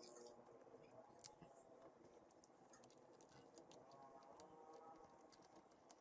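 Near silence: faint room tone with scattered small ticks.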